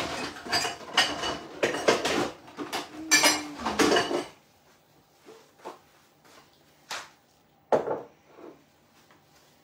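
Dishes and cutlery being handled: a dense clatter of knocks and clinks for about four seconds, then a few separate knocks.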